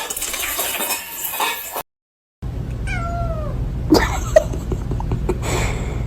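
A cat meows once, a short call that falls in pitch, about three seconds in.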